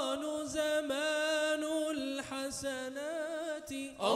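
Male a cappella tawashih group singing: a steady low note is held underneath while a voice above sings a wavering, ornamented melodic line.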